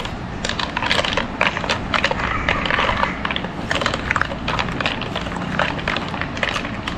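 Spoon stirring mango pulp with ice cubes in a steel pot: irregular clinks and scrapes of ice and spoon against the metal.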